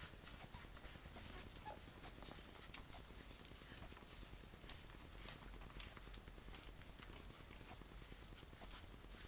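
Three-week-old Tibetan terrier puppies suckling at their mother's teats: faint, irregular wet clicks and smacks from their mouths.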